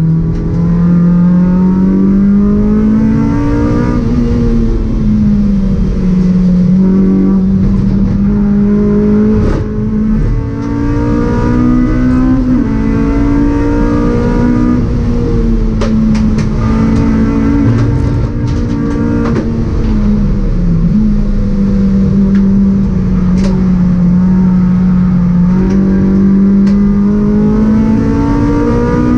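Honda Civic Type R EP3 race car's 2.0-litre four-cylinder engine at racing revs, heard from inside the stripped cabin. The note climbs under acceleration, drops at a gear change about four seconds in, holds high and steady, dips briefly about twenty seconds in, and climbs again near the end, with scattered sharp clicks in between.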